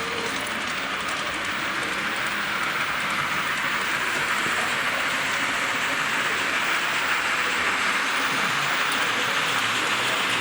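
Model trains running on the layout's track: a steady rushing whir of small wheels and motors, with faint fine clicking, growing slightly louder.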